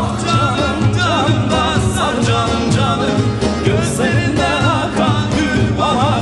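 Turkish folk song performed by a bağlama (saz) ensemble over a steady, regular beat, with a male voice singing a wavering, ornamented melody.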